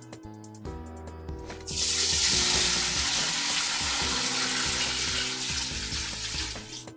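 Water running steadily, a loud even rush that starts about two seconds in and stops just before the end, over background music.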